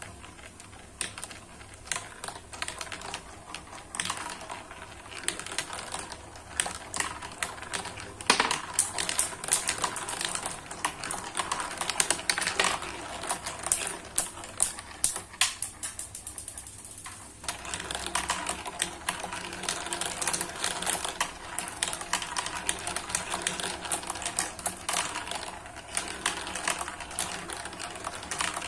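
Marbles rolling and clicking down a spiral-ramp marble-run track: a dense, rapid clatter of small clicks that thins out briefly a little past halfway, then picks up again.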